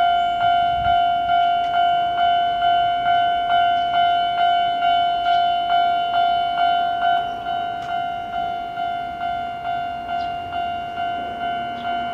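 Level-crossing warning bell ringing in a steady, rapid clang, a little over two strikes a second, each strike a single ringing tone, getting slightly quieter in the second half. A low hum joins in near the end.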